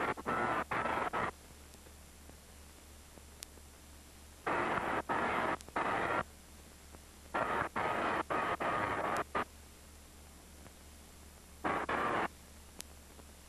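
Large 100,000-watt Tesla coil firing spark discharges in four crackling bursts, each a half second to two seconds long and broken up by rapid stutters, with a steady low hum between bursts.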